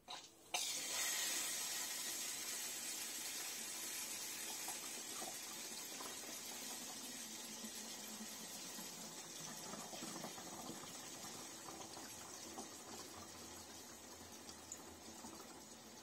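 Water from a hose pouring into a tabletop dishwasher's fill tank. It starts suddenly about half a second in as a hissing, splashing rush and grows gradually quieter.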